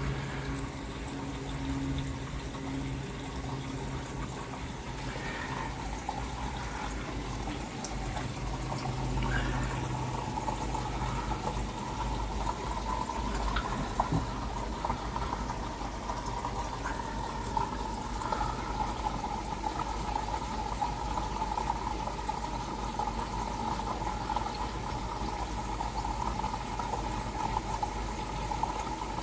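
Water splashing and bubbling steadily at the surface of a garden koi pond, where water wells up and churns the surface, with a faint steady hum underneath.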